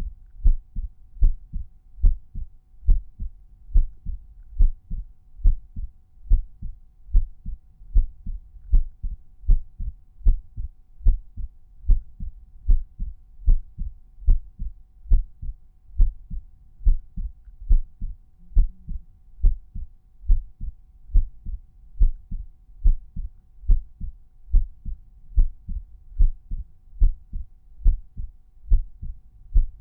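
Resting human heartbeat heard through a stethoscope at the tricuspid area: a regular lub-dub, each beat a pair of low thumps, about one beat a second.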